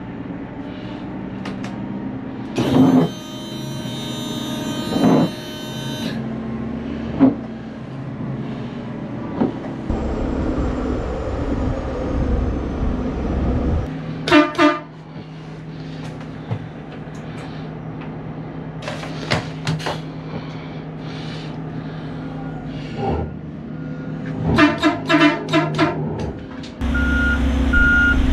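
Oshkosh Striker airport fire truck's diesel engine running as it is driven. A loud burst of air hiss comes about three seconds in, two short horn toots come around the middle, and a quick string of toots follows near the end. A reversing alarm starts beeping at the very end.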